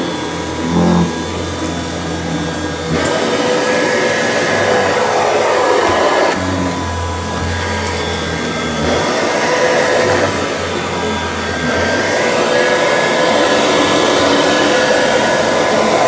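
Kirby Classic III vacuum cleaner running with a steady motor whine and rush of air. The low hum and the air noise rise and fall every few seconds as it works over the floor.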